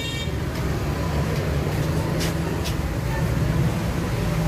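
Busy street ambience at a roadside food stall: a steady low hum of traffic and engines with crowd voices mixed in, and a couple of sharp clicks about two seconds in.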